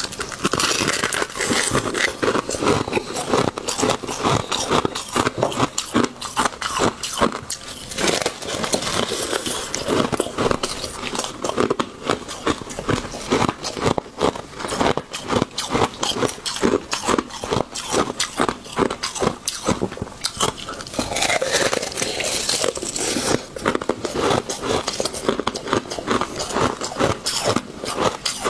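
A person biting into and chewing a brittle sheet of ice: continuous close-up crunching and crackling with many sharp snaps as the ice breaks between the teeth.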